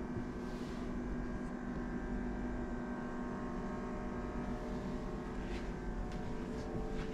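Steady low mechanical hum at an unchanging pitch, like an engine or motor running at constant speed, with a few faint ticks in the second half.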